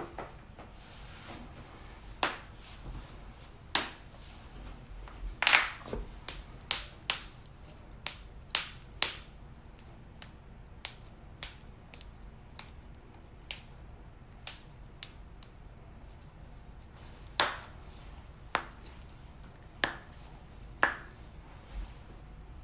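Joints cracking under chiropractic adjustment: about twenty sharp pops and cracks at irregular intervals, the loudest coming in a quick cluster about five to nine seconds in.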